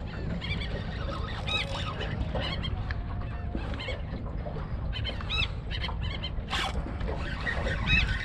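A flock of seabirds calling over open water, many short, arched calls overlapping at irregular times, over a steady low rumble of wind on the microphone. A single sharp click about six and a half seconds in.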